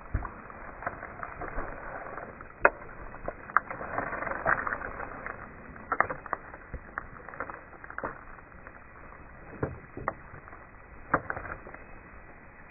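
Irregular sharp cracks and knocks, a few seconds apart, with a stretch of rustling about four seconds in.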